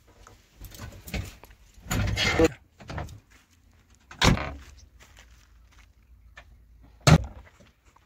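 The glass cab door of a JCB 3DX backhoe loader being handled as the operator gets in. There are rustles and clunks, then a sharp bang about four seconds in and another near the end as the door shuts against the cab. The engine is not yet running.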